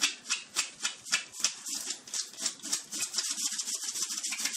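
A small terrier's front paws scratching rapidly on a rug as it digs, at about four strokes a second at first, then faster and more even after about three seconds.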